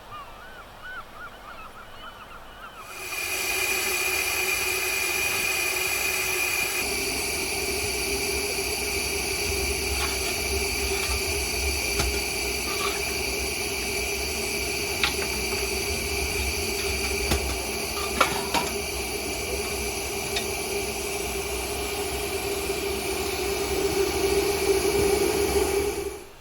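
A few faint short calls, then about three seconds in a loud, steady hiss with constant tones over a deep rumble, a few sharp clicks scattered through it, starting and stopping abruptly, typical of a miniature railway train running.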